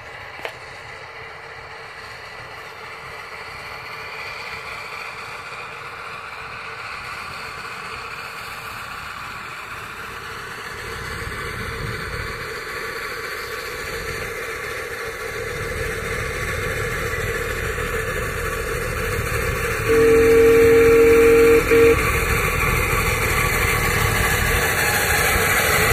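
Miniature steam locomotive hauling a passenger train, approaching with its running noise growing steadily louder. Near the end it sounds a whistle of several tones at once, about two seconds long, with a brief break near its end.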